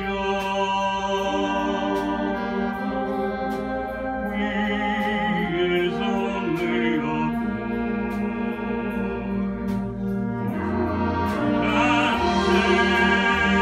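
Community concert band of clarinets and brass playing a slow ballad arrangement in sustained, held chords, swelling louder near the end.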